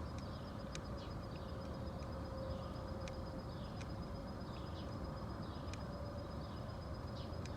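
Sharp single clicks every second or two from a 2000 Yamaha YZF R6's starter circuit as the button is pressed, over a steady low hum; the starter motor does not turn over.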